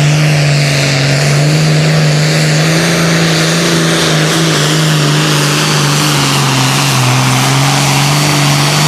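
Super Farm class pulling tractor's turbocharged diesel engine at full throttle under load, pulling the sled down the track, loud and steady with slight dips in pitch. A faint high whine joins near the end.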